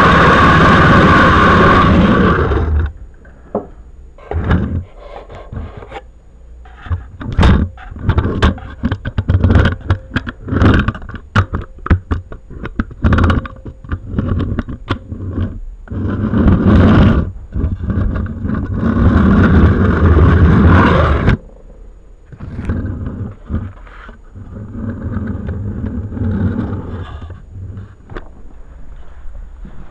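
Close-up rumbling of a OO gauge model train coach being pushed by hand along the track, heard through a micro camera strapped to the coach. Long rumbling stretches, the loudest in the first three seconds, alternate with many knocks, clicks and scrapes as the coach is handled.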